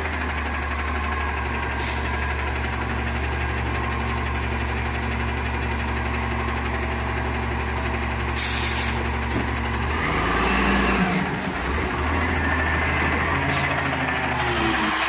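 Front-loader garbage truck lifting a dumpster on its hydraulic arms: the engine runs steadily to drive the hydraulics, its note shifting a little past the middle. Several short, sharp hisses of released air come through, the longest about a second.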